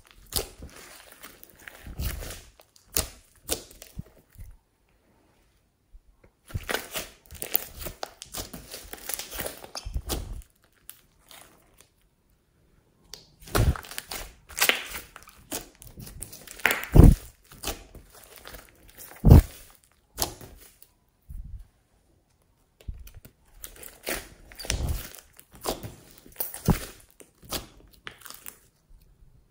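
Glossy slime being kneaded, stretched and pressed by hands: wet crackling and popping clicks in bursts with short silent pauses, and a few low thuds as the slime is pressed down.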